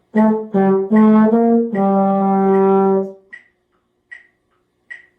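Low brass instrument, trombone-range, playing a five-note beginner-band phrase (A, G, A, B-flat, G): four short notes and a long held final note. A metronome ticks faintly after it.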